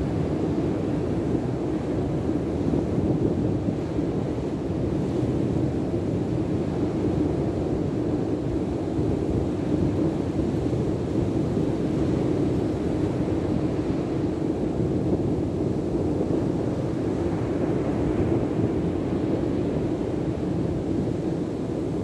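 Steady rumble of surf breaking on a sandy beach, mixed with wind on the microphone.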